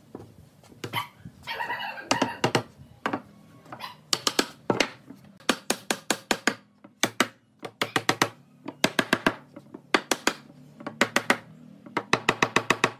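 A pine wood frame struck repeatedly with a hammer or mallet in short bursts of several quick blows, as its joints are knocked together. The blows come fastest near the end.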